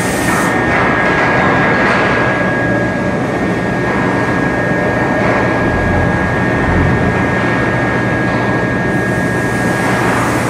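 Steady mechanical din of an automatic foundry moulding and conveyor line running, with a constant high whine and low hum, and a couple of low thuds about six and seven seconds in.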